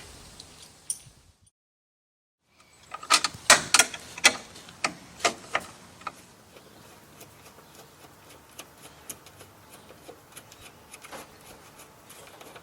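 Hard clicks and knocks of hardware being handled. They come in a quick run of a dozen or so after a brief dead silence, then thin out to occasional fainter clicks.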